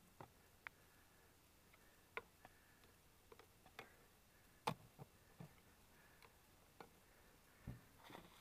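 Faint, scattered clicks and knocks from handling the wooden frames of a beehive, with one louder knock about halfway through.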